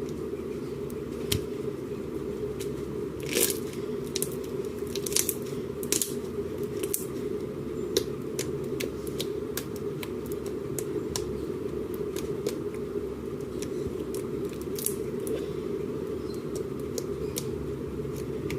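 Slime being squeezed and worked by hand, giving irregular sticky clicks and pops, over a steady low hum.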